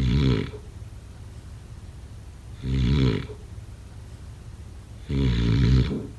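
Snoring: three loud snores about two and a half seconds apart, each a short buzzing snore of just under a second.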